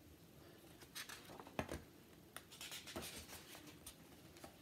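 Paper pages of a picture book being handled and turned by hand: soft rustles and a few light clicks and knocks, starting about a second in. The sharpest knock comes about a second and a half in.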